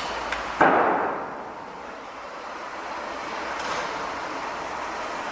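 A single loud bang about half a second in, fading out over a second, over the steady noise of a busy city construction site.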